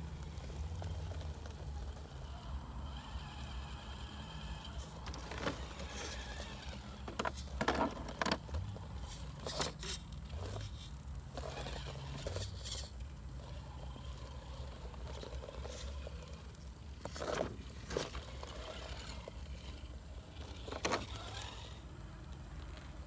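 Scale RC rock crawler climbing over broken concrete slabs: scattered scrapes and knocks of its tyres and chassis on the concrete, in a few short clusters, over a steady low rumble.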